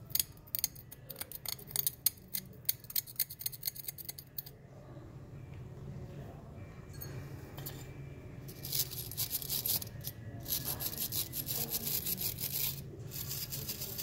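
Small metal tool clicking and scraping against a freshly cast aluminum piece, picking off the plaster mold. From about nine seconds in, a wire brush scrubs the casting in rapid scratchy strokes, with a short pause near the end.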